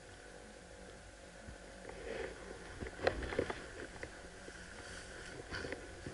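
Dry tall grass rustling and crackling against clothing and underfoot as a person moves slowly through it, quiet at first, then intermittent, with a few sharper crackles about three seconds in.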